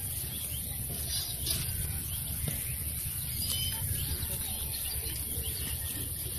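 Open-air ambience: faint scattered bird chirps over a steady low rumble and a steady high hiss.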